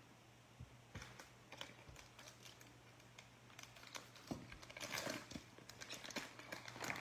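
Faint clicks and rustling of basketball trading cards handled by gloved hands as a stack is sorted through, getting busier about four seconds in, over a faint steady hum.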